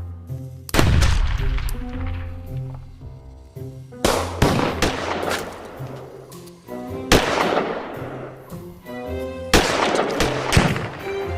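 Fireworks going off: about six sudden loud bangs, each trailing off in a fading hiss, over background music.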